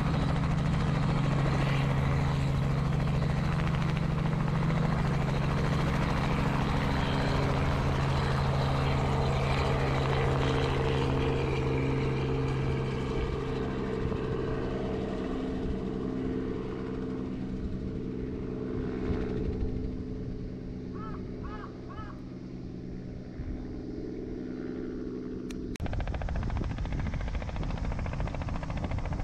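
Robinson helicopter's rotor and engine, loud and steady as it lifts off, then fading and dropping in pitch as it climbs away into the distance.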